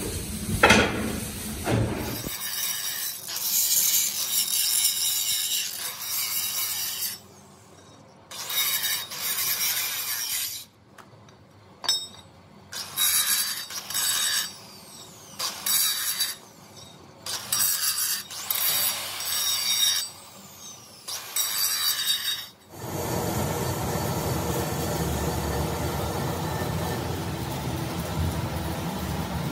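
Angle grinder grinding the edge of a steel gearbox flange in repeated passes, the harsh high whine starting and stopping every second or two. For the last several seconds a steadier, lower noise takes over.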